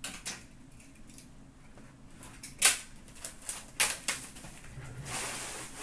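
Trading-card boxes and packs handled on a counter: a few sharp clicks and taps, the loudest two about a second apart midway, then a rustling crinkle of wrapper near the end.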